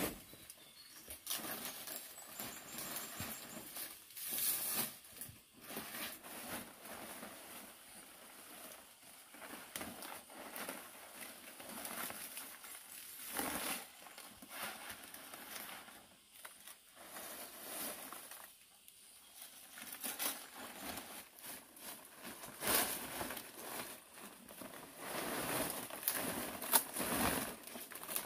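Irregular rustling and crinkling with many scattered light taps, uneven in loudness.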